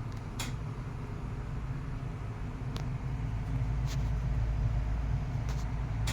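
12-inch Galaxy 2150 plastic oscillating table fan running at medium speed: a steady low hum with a soft rush of air, mixed with a household furnace running. A few faint ticks sound here and there.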